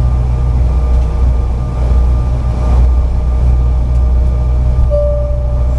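Inside the cabin of a Bombardier CRJ-900 taxiing: the steady low rumble and hum of its rear-mounted CF34 turbofans at taxi power. A clear high tone comes in near the end.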